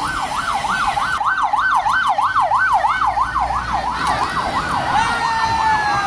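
Emergency vehicle siren in a fast yelp, its pitch sweeping up and down about three times a second. About four seconds in, a second, slower siren tone joins and slides downward as the yelp fades.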